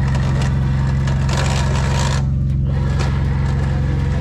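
A vehicle engine idling steadily, its low, even pulsing unchanged throughout, with a rushing noise over it that drops away briefly about halfway through.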